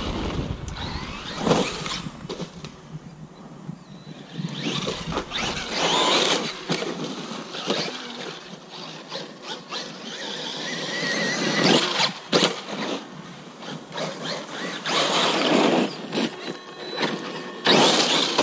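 Traxxas Maxx RC monster truck driving on pavement in repeated surges of throttle, its brushless electric motor whining, with the hard plastic wheelie-bar wheels scraping and squealing on the road surface, which sounds horrible.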